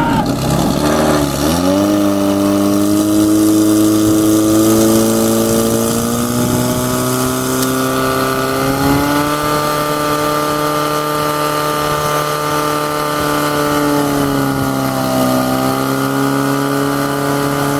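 Portable fire pump's petrol engine revving up and held at high revs while pumping water out through the attack hoses. Its pitch steps up twice more, dips briefly near the end, then holds again.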